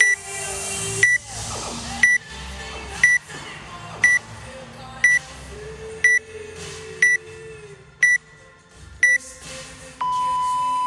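Workout countdown timer beeping: ten short high beeps, about one a second, then one longer, lower beep near the end that signals the start of the workout.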